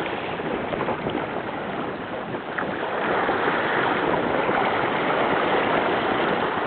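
Steady rush of water and breaking waves along the hull of a small sailboat running downwind in about 20 knots of wind, mixed with wind noise.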